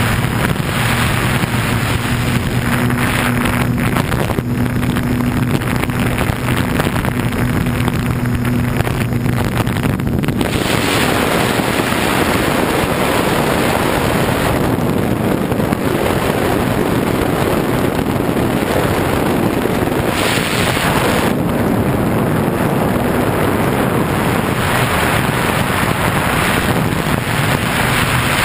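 Radio-control airplane's motor and propeller giving a steady drone under heavy wind rush over the bare onboard GoPro camera in flight. The motor tone drops away about ten seconds in, leaving mostly wind noise, and comes back faintly near the end.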